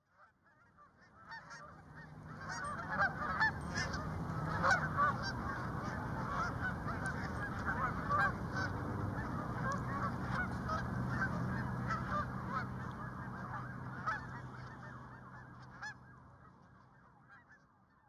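A large flock of Canada geese honking together, many overlapping calls at once. It fades in over the first few seconds and fades out near the end.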